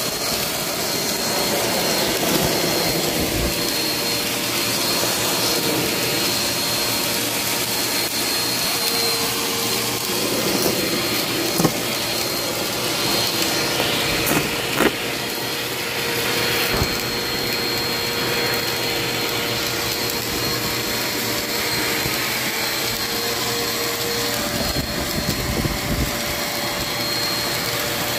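Vacuum cleaner running steadily with a constant whine as its floor head is pushed over a hardwood floor, sucking up scattered confetti and small debris. A few short clicks stand out, the clearest about 11 and 15 seconds in.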